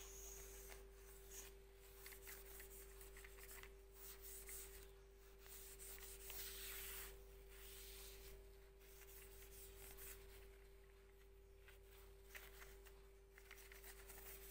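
Faint, irregular rubbing and scratching of a soft wipe drawn along the metal housing and wires of a photocopier's corona unit as it is cleaned of toner.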